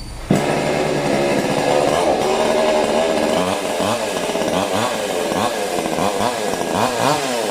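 Oxford 22-inch two-stroke chainsaw starting up about a third of a second in, running steadily for a few seconds, then revved up and down about once a second as it is tested.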